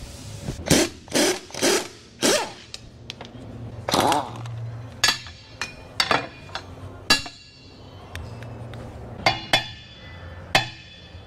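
A string of sharp metal clanks and ringing clinks, about a dozen in all, from steel track-pad bolts and nuts being tossed onto a pile and knocked about with tools. The later ringing knocks come from working loose a bolt stuck inside a socket.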